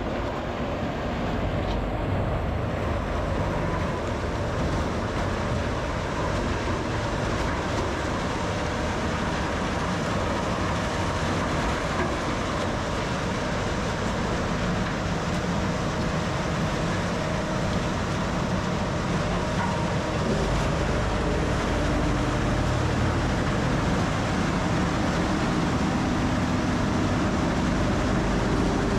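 Rotochopper B66L wood grinder running steadily, grinding storm-felled pine trees into chips, with a dense, loud grinding noise over a low machine drone. It grows slightly louder about two-thirds of the way through.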